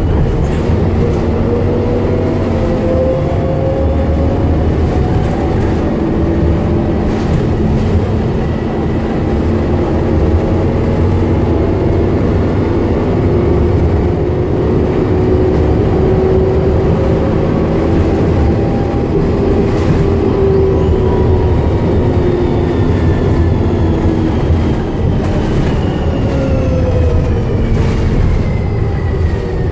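DAF DB250LF double-decker bus's diesel engine and drivetrain running while under way, heard inside the lower-deck cabin over steady road noise. Whines rise and fall in pitch as the bus speeds up and slows, with a few brief rattles.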